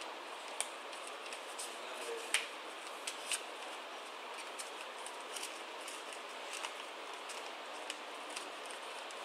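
A sheet of paper being folded and creased by hand: scattered sharp crinkles and crackles, the loudest a little over two seconds in, over a steady hiss.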